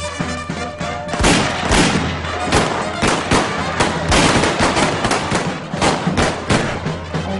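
Balkan-style brass band of trumpets and tubas playing, with repeated sharp bangs over it from pistol shots fired into the air.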